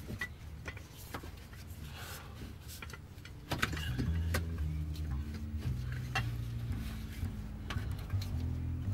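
Scattered metallic clinks and rattles of an Accusump oil accumulator and its metal mounting bracket being handled and worked into place under the car. Low background music with a stepping bass line runs underneath and gets louder a few seconds in.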